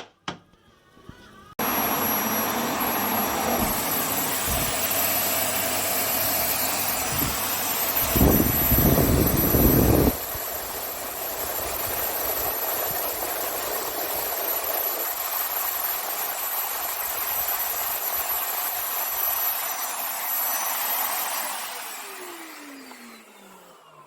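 Vax Air Lift Pet upright vacuum cleaner (850 W) switched on and running steadily with a high whine, with a louder rumble for about two seconds in the middle. Near the end it is switched off and the motor spins down with a falling pitch.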